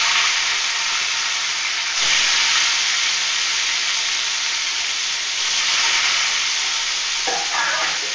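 Katla fish pieces sizzling as they fry in hot mustard oil in an aluminium kadai, a dense steady crackle that flares up about two seconds in.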